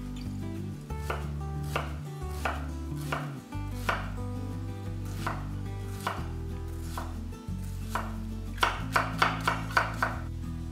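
Chef's knife dicing an onion on a wooden cutting board: single chops about every half second, then a quicker run of about six chops near the end.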